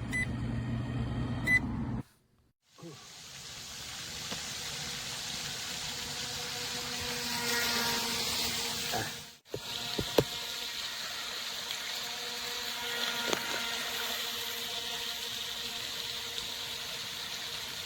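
Mini electric RC tugboat running on water: a steady hiss of water and air with a faint, even motor hum. The sound drops out briefly twice, about two seconds in and again near the middle.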